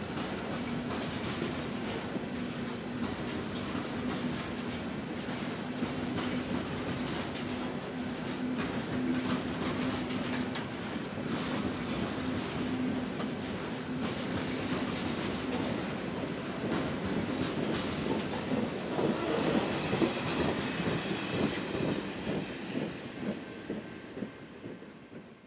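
Loaded ballast hopper cars rolling past, their wheels clacking over the rail joints, with a steady hum under the rolling noise for the first half. The sound swells briefly and then fades away near the end as the train passes.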